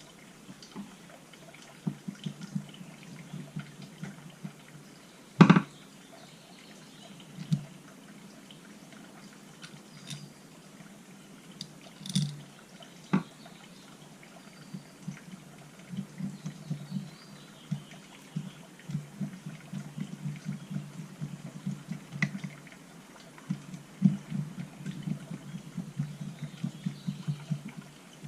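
Small metal carburetor parts and hand tools clicking and tapping on a workbench as a chainsaw carburetor is put back together, with one louder knock about five seconds in and quicker small clicks near the end.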